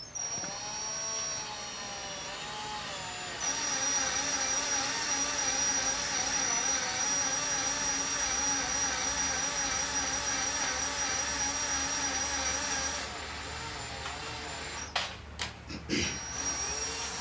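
Cordless drill on its slow setting, driving a 1 1/8 inch auger bit on an extension into wood. There is a steady motor whine that gets louder about three seconds in and quietens about thirteen seconds in. A few clicks follow near the end.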